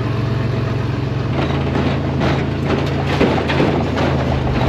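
Turbocharged rat rod engine running while driving, heard from inside the cab. Its low, even note changes about a second in.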